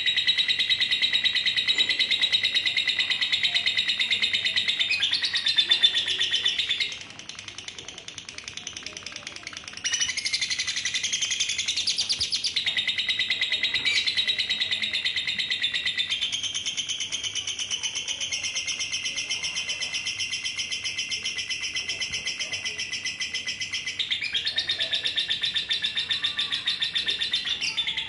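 Female lovebird singing its long, rapid, high-pitched chattering trill, the 'ngekek' song. The trill drops away for about three seconds some seven seconds in, then resumes and runs on in long unbroken stretches.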